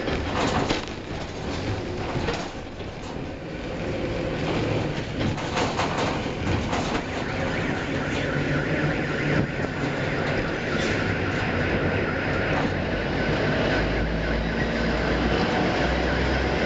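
Container gantry crane's trolley running along its rails as it carries the spreader from the ship back over the quay, a continuous mechanical rumble with rattling clicks from wheels and rigging. A deeper hum comes in near the end as the spreader is lowered onto a container.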